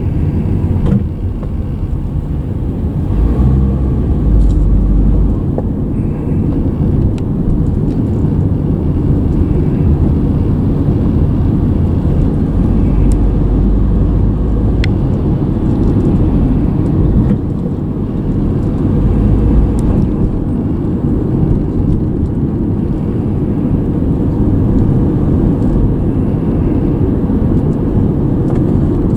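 A car being driven, heard from the car itself: steady low road and engine rumble, with a few faint, scattered clicks.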